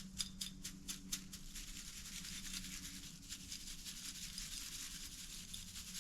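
Faint handling sounds: a quick run of light clicks, then soft rubbing and scraping, over a steady low hum.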